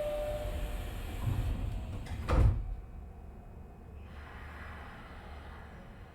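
Nishitetsu 3000 series commuter train's passenger doors sliding shut, ending in a loud thud about two and a half seconds in. A short steady tone sounds at the very start.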